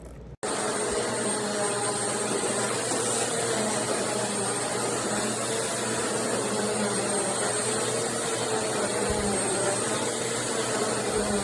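BISSELL CleanView Swivel Pet upright vacuum cleaner running steadily: a rush of air with a faint high motor whine. It starts abruptly a moment in.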